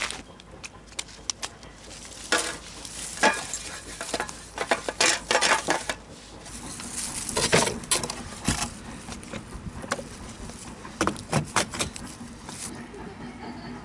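Camp cookware and utensils being handled: irregular clinks, taps and short rattles.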